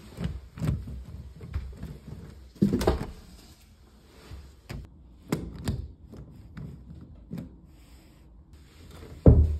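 Loose brass doorknob rattling and its latch clicking as the knob is turned and the door opened and worked back and forth: a string of irregular clicks and knocks, with a heavier knock just before the end.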